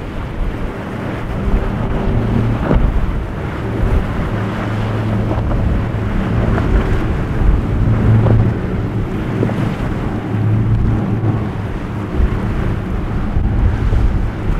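Triple outboard engines of a Contender center-console boat running at speed, a steady low hum, with water rushing and splashing off the hull and wind buffeting the microphone.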